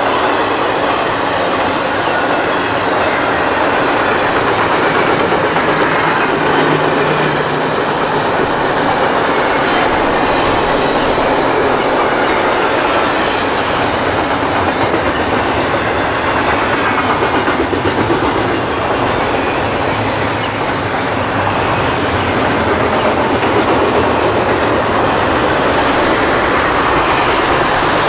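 Freight train of double-stack intermodal container cars rolling past close by, a steady loud rumble and rattle with the wheels clicking rhythmically over the rail joints.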